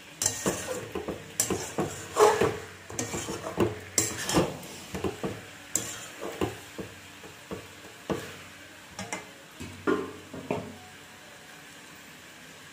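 A metal spatula scraping and knocking against a large metal pot as chicken curry with potatoes is stirred and fried in its oil; irregular strokes several times a second that stop about eleven seconds in, leaving a faint steady hiss.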